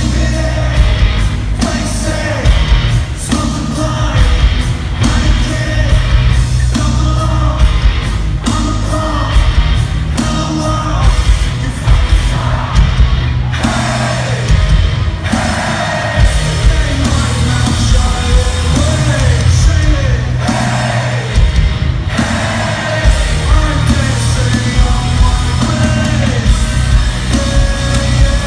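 Live rock music from a band with a singer, heavy bass and drums, loud and continuous.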